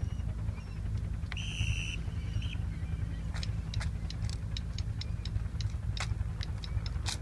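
Steady low outdoor rumble, with a short high beep about one and a half seconds in, then a run of sharp irregular clicks from about three seconds on.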